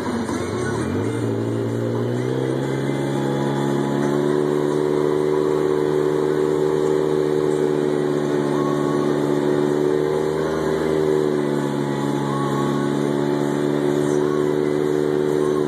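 Polaris RZR side-by-side's engine accelerating, its pitch rising over the first couple of seconds, then running steadily at cruising speed, easing briefly a little past halfway before picking up again.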